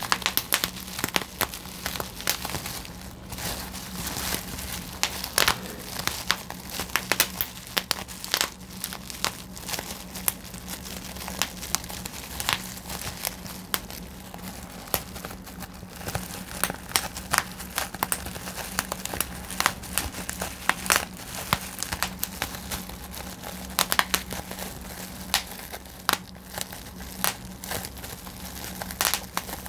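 Plastic bubble wrap being twisted and squeezed by hand: irregular sharp pops of bursting bubbles, several a second, among the crinkling of the plastic sheet. A steady low hum runs underneath.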